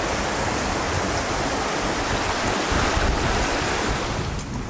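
Steady rushing noise of wind buffeting the microphone, mixed with shallow stream water running over rocks.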